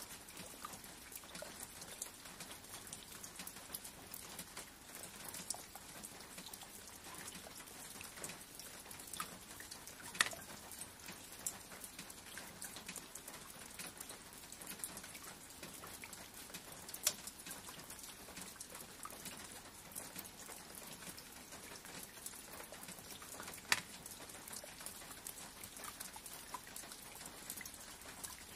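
Steady rain, with many small drops ticking on a surface and a few louder single drops now and then.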